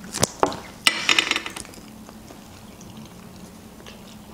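Metal fork and knife clinking and scraping on ceramic plates while a waffle is cut: three sharp clinks and a short scrape in the first second and a half.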